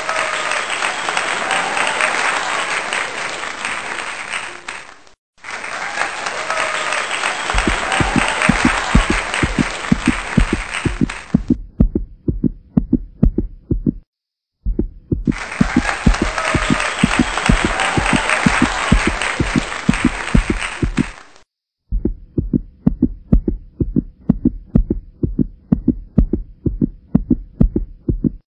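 Added sound effects: bursts of applause and cheering that cut in and out sharply, over a steady, deep heartbeat-like thumping. The thumping starts a few seconds in and carries on alone in the gaps between the applause.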